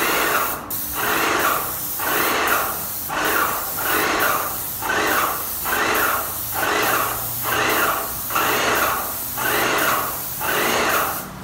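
Airless paint spray gun spraying a ceiling: a loud hiss that surges and eases in a regular rhythm, a little more than once a second.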